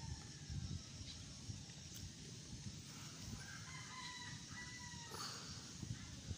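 A rooster crows faintly, one long call a little past halfway through. Underneath runs a low rustle of chili plant leaves and stems being handled.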